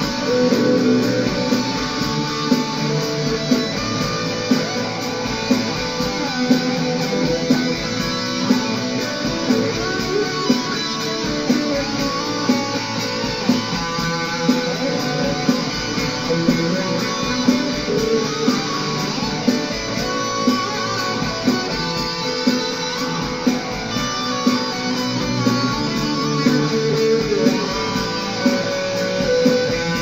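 Instrumental guitar music, plucked and strummed, with a steady beat.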